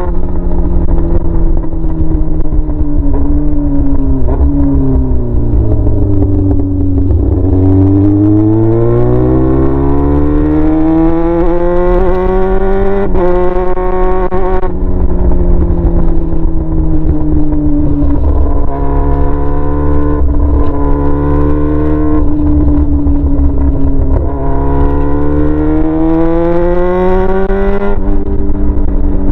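Yamaha R6's inline-four engine running straight-piped with no muffler, ridden under varying throttle. The engine note dips, climbs over several seconds, falls suddenly about halfway through, then climbs again and falls suddenly near the end.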